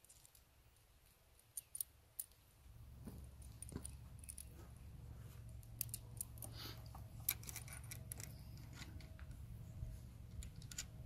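Faint scattered clicks and small metallic rattles of screws and mount parts being handled and fitted by hand. A low steady rumble sets in about three seconds in.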